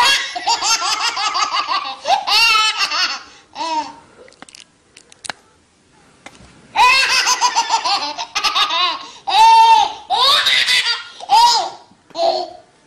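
A baby's hysterical belly laugh: long runs of high-pitched, breathless laughter in rapid bursts, dropping away for about three seconds in the middle before starting up again.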